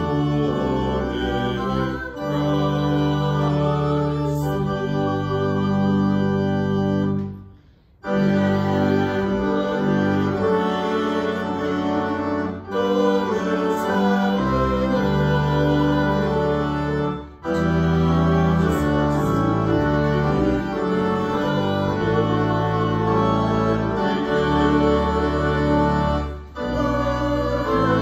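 Organ playing a hymn in held chords, with short pauses between phrases and a longer break about eight seconds in.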